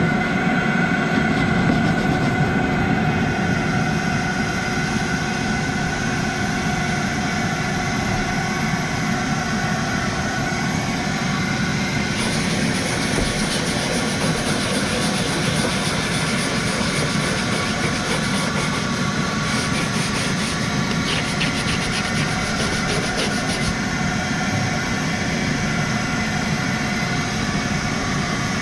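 A steady mechanical drone with several held tones and a low rumble. From about twelve seconds in until about twenty-four seconds, a bristle brush scrubs a plastic door panel over it, a rapid scratchy hiss.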